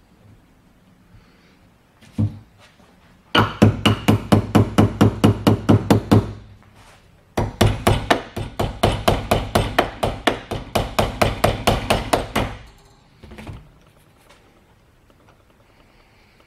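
Rapid, even tapping, about seven sharp knocks a second, in two runs of a few seconds each after a single knock, typical of light hammering on small metal switch parts.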